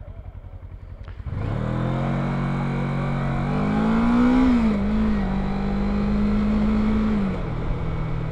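A motor vehicle engine close by, which cuts in suddenly about a second in and revs, rising in pitch in the middle, holding steady, then settling lower near the end.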